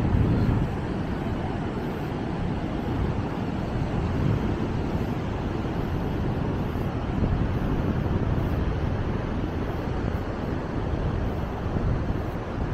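Wind buffeting the microphone outdoors: a steady rushing noise with an uneven low rumble, a stronger gust right at the start.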